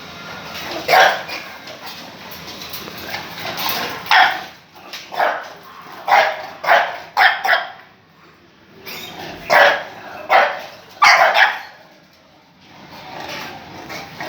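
A dog barking, about a dozen short barks in irregular runs with brief pauses between them.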